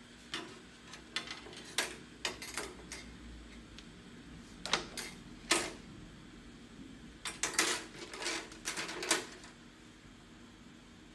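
Scattered light clicks and taps of LED backlight strips being handled and set down on a TV's sheet-metal back panel, with a busier run of clicks about two-thirds of the way in.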